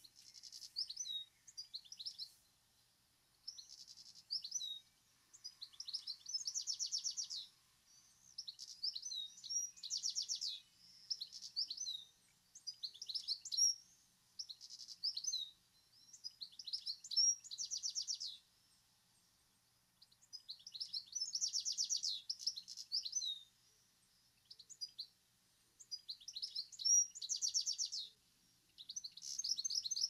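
A male European goldfinch singing: bursts of high, liquid twittering with rapid trilled stretches, a second or two each, repeated with short pauses.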